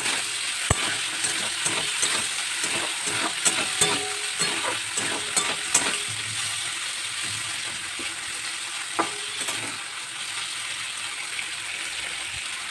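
Shrimp frying in hot oil in a pan: a steady sizzle with many sharp clicks and pops, busiest in the middle few seconds.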